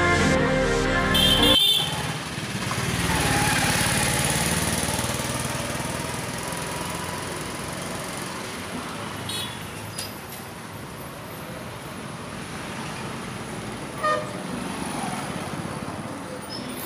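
Street traffic: motorbikes and auto-rickshaws going by as a steady noise, with one vehicle passing close about three seconds in and a brief horn toot near the end.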